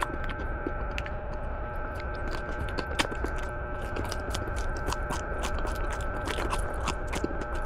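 A person chewing raw alugbati (Malabar spinach) leaves and stems close to the microphone: a quick, uneven run of small crisp crunches, over a steady background hum.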